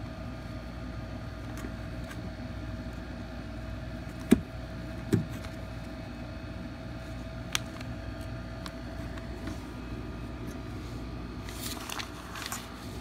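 Sharp clicks and knocks from hands working small plastic wire connectors and multimeter test probes, the loudest about four seconds in, another a second later, and a smaller one a few seconds after that. A brief rustle of handling comes near the end, over a steady low hum.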